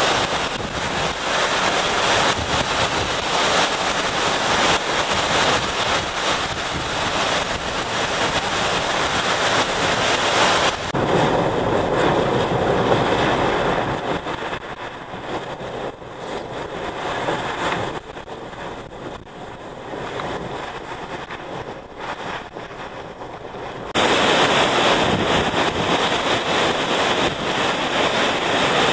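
Hurricane-force wind and driving rain buffeting the microphone as a dense, steady rush. The sound changes abruptly about a third of the way in, duller and quieter, then turns loud and bright again near the end.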